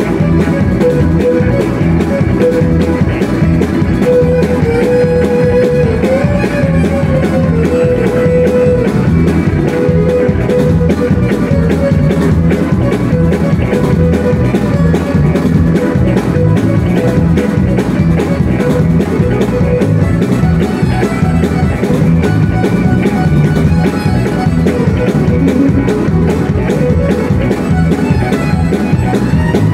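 Live country band playing an instrumental passage: a fiddle bowing the melody over guitar and a steady drum beat.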